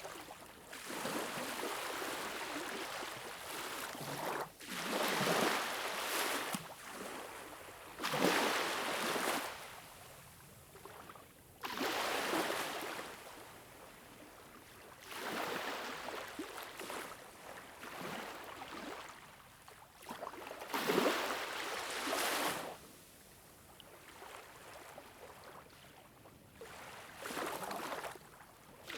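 Waves washing in, each surge of water noise swelling and fading again about every three to four seconds.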